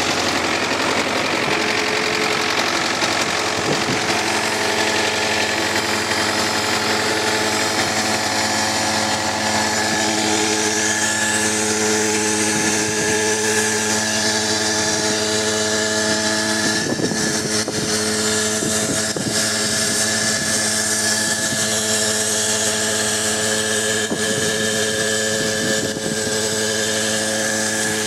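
Belarus 820 tractor's four-cylinder diesel engine running steadily under load while towing a 7-tonne tanker across a field. Heard from inside the cab, with a few short knocks and rattles about two-thirds of the way through.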